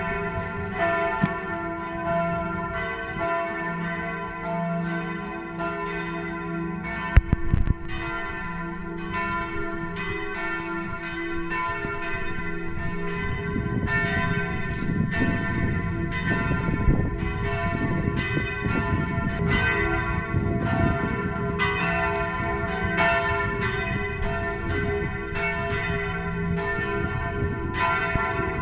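Church bells ringing in a steady run of overlapping strokes, two or three a second, like change ringing. About seven seconds in there is a sharp loud knock, and from about halfway a low rumble sits under the bells.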